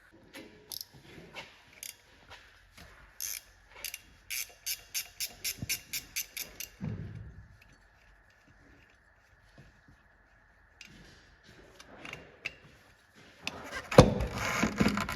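Hand work on a car: a run of metallic clicks, some evenly spaced at about four a second, then scattered knocks and a loud clunk near the end.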